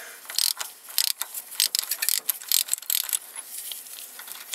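Hand ratchet clicking in quick, irregular runs as a socket backs the broken stub of the harmonic-balancer bolt out of the crankshaft snout.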